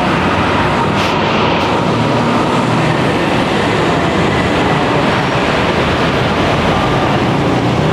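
Loud, steady noise of busy city street traffic, with no separate events standing out.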